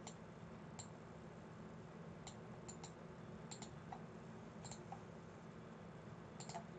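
Faint, scattered clicks of a computer mouse and keyboard, about a dozen sharp clicks at irregular intervals, over a faint steady low hum.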